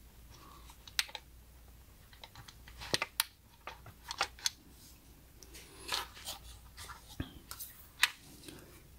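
Light clicks, taps and rubbing from fingers handling the stainless steel lid of an Instant Pot pressure cooker while pressing the silicone cap back onto its float valve. The clicks come singly and irregularly, about eight of them, with a sharper tap near the end.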